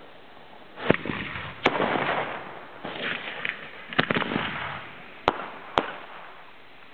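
Homemade fireworks going off: launches with a rushing hiss and about six sharp bangs. The last two bangs come close together, about half a second apart, near the end.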